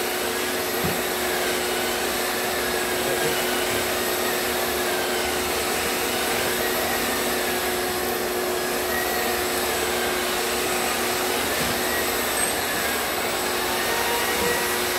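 Long-handled drywall pole sander sanding popcorn texture off a ceiling, with a shop vacuum pulling the dust through its hose, both running steadily. A steady hum sits under a whine that slowly rises and falls as the sanding head works.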